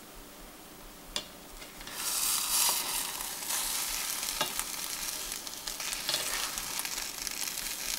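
Egg omelette sizzling in a stainless-steel frying pan as a spatula pushes and lifts it, with short scrapes and taps of the spatula against the pan. After a light tap, the loud sizzling starts about two seconds in.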